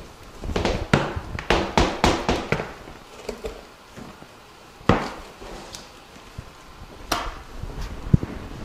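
Sharp knocks and taps of hard objects being handled: a quick run of them in the first three seconds, single knocks about five and seven seconds in, and a duller knock near the end as a clay brick is lifted off a stack of plastic growing trays.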